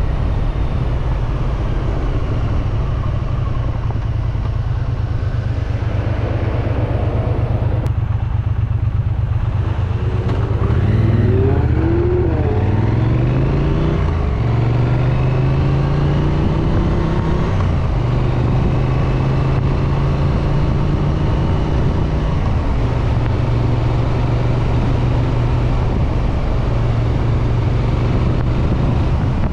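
Exhaust of a Triumph Street Twin's 900 cc parallel-twin engine, ridden under way: the revs fall and climb again near the middle, then hold steady.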